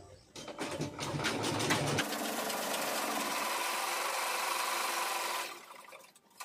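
Domestic sewing machine stitching: a few irregular clicks as it gets going, then an even run for about three seconds that winds down about five and a half seconds in, ending with a single click.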